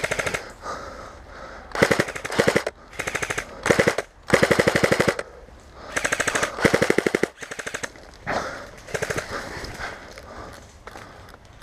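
Airsoft guns firing on full auto in several short, rapid bursts of evenly spaced shots, with brief pauses between bursts.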